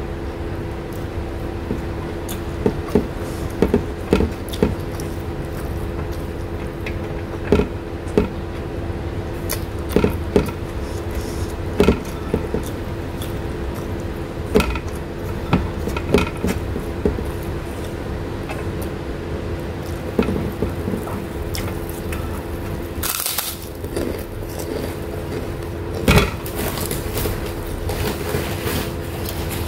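Close-miked eating sounds: a person eating rice and fish with her fingers, chewing and smacking her lips, with small sharp clicks scattered throughout and a few louder rustly bursts near the end. A steady low hum runs underneath.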